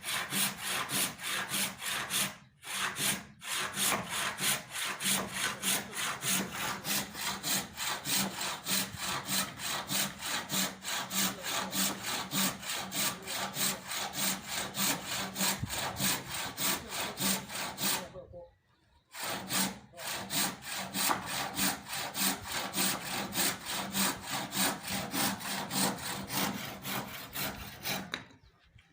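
Handsaw cutting through timber in fast, even back-and-forth strokes. The sawing stops briefly twice early on and for about a second later.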